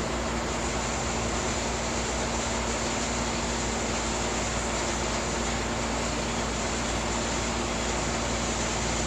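Steady, even background noise with a constant low hum, unchanging throughout.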